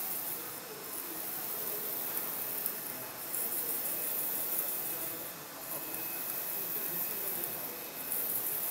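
UV LED flatbed printer running while it prints on ceramic tiles: a steady whirring hiss with a short break in the high hiss about every two and a half seconds.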